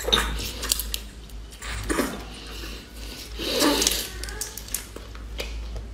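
Wet sucking and slurping of a mouth drawing meat out of a large shrimp's shell, in short, irregular bursts over a low, steady hum.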